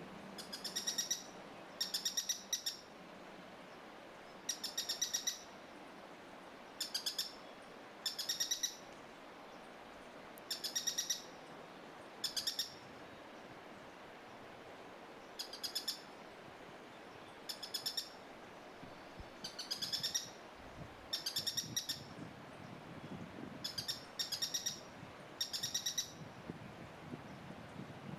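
Streak-backed Treehunter calling over and over: short runs of rapid, high-pitched notes, each about half a second long, repeated every second or two.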